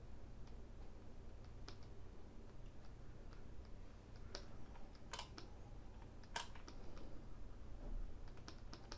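Faint computer input clicks, key presses and mouse clicks, a handful spaced irregularly, over a low steady hum.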